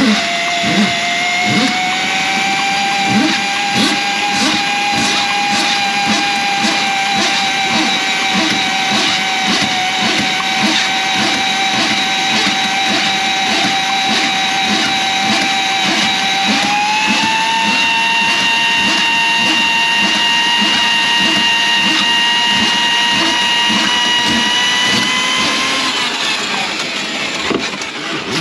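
Electric drain snake machine running, its motor whining steadily with a rhythmic knocking from the spinning cable as it works through the clogged kitchen sink drain line. The whine steps up in pitch about two thirds of the way in, then the machine winds down and stops near the end.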